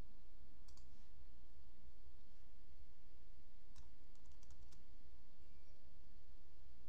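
Faint computer mouse clicks over a steady low hum: one about a second in, another near four seconds, then a quick run of clicks just after.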